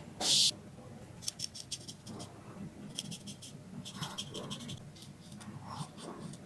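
Straight razor scraping across stubble in short strokes, each stroke a quick run of fine crackling scratches. A brief hiss at the very start.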